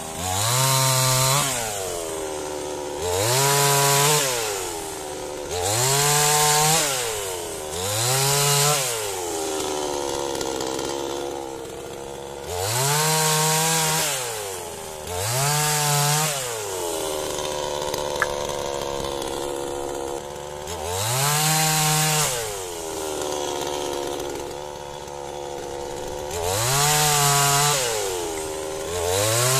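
New Dnipro-M two-stroke petrol chainsaw being run in while cutting firewood logs. It revs up for each short cut, about eight times, and drops back to a steady idle between cuts, with longer spells of idling in the middle.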